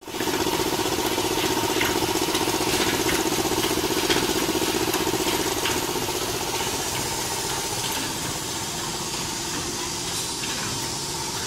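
Cellophane overwrapping machine running: a steady motor hum with scattered sharp clicks from the mechanism. The hum eases a little about halfway through.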